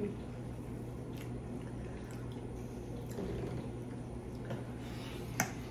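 Close-miked eating sounds: wet chewing of creamy pasta, with a few short clicks of metal forks, the sharpest about five seconds in, over a steady low hum.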